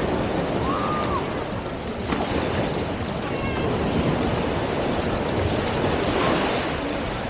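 Surf washing onto a beach: a steady rush of waves. A short sharp click comes about two seconds in.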